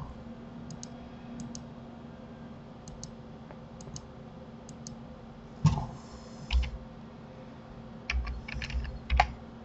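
Computer keyboard being typed on: a few scattered faint key clicks, two louder knocks about halfway through, then a quick run of keystrokes near the end, over a steady low electrical hum.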